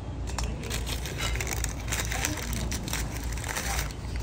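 Paper napkin crinkling and crackling as it is handled, a dense run of short crackles, over a steady low background hum.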